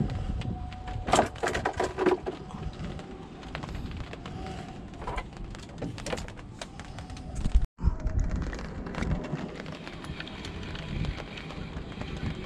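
Wind buffeting the microphone as a steady low rumble, with a cluster of sharp clicks and knocks about a second in. The sound cuts out for an instant about eight seconds in.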